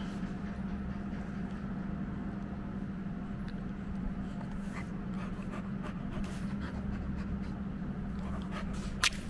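Great Pyrenees puppy mouthing and chewing a fabric toy: soft scattered rustles and small clicks over a steady low hum, with one sharp click about nine seconds in.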